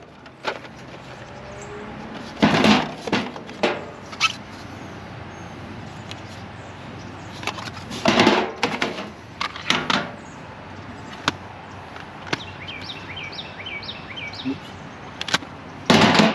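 Found objects being handled and rummaged through: several separate bursts of clattering and knocking.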